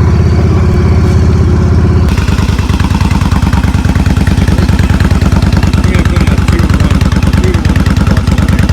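Loud vehicle engine, most likely a motorcycle's, running with a steady note; about two seconds in it changes to a fast, even pulsing with more hiss over it. Its sound is loud enough to startle people in nearby cars.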